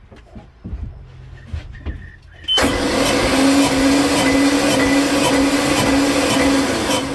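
Volvo 5.7 multi-port injection V8 marine engine turned over on its starter motor for a compression test: a loud, steady starter whine that starts suddenly about two and a half seconds in and cuts off after about four and a half seconds.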